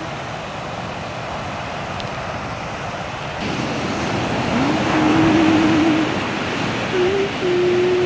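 Ocean surf breaking and washing up a sandy beach, a steady wash of noise that swells about halfway through as a wave breaks close in. Over it in the second half, a thin wavering tone comes and goes.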